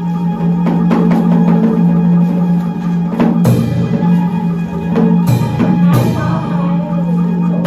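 Traditional Vietnamese ensemble music for water puppetry: plucked strings over a held low tone, with a few deep drum strikes in the second half.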